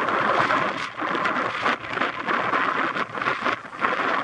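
Wind buffeting the microphone over the wash of small surf waves breaking on a sandy beach, a steady rushing noise with irregular gusty surges.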